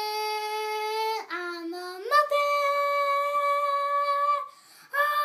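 A boy singing unaccompanied, holding long notes: one held note, a short lower one, then a higher note held for about two seconds, a brief break, and the same high note taken up again near the end.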